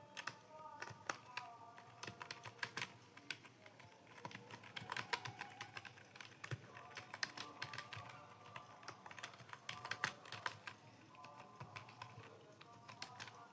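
Computer keyboard being typed on in quick, irregular runs of key clicks, with short pauses between bursts.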